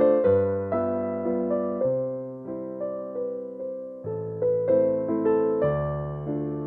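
Background music: a soft electric piano playing a gentle melody over bass notes, each note struck and then fading.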